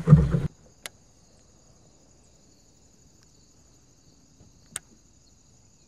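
A brief burst of voice cuts off half a second in, giving way to a faint, steady, high-pitched chirring of insects. Two sharp clicks stand out over it, one about a second in and one near the end.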